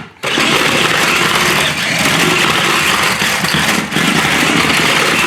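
Toy remote-control car's small electric motor and gearbox whirring steadily as it drives, with the wheels running over the floor. The whirr cuts out very briefly at the start and again about four seconds in.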